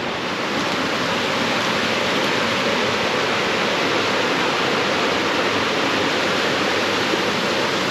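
Small river rushing over a little waterfall, a steady sound of fast-moving water that grows slightly louder in the first second; the stream is running high after days of rain.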